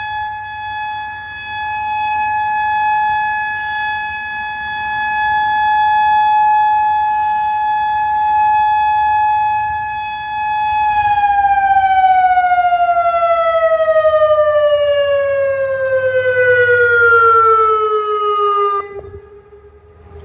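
Federal Signal Modulator 5020B outdoor warning siren sounding a steady alert tone, swelling and fading in loudness every few seconds. About halfway through it is shut off and winds down in a long, smooth falling pitch, then cuts out near the end.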